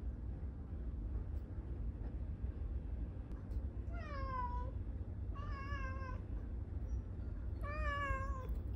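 Domestic cat meowing three times, about four, five and a half and nearly eight seconds in, the first call falling in pitch and the others wavering, over a steady low rumble.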